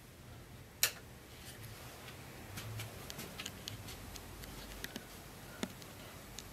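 Quiet, irregular clicks and pops from a turntable and its playback over a faint low hum, with no music playing. One sharp, loud click comes about a second in and another near the end.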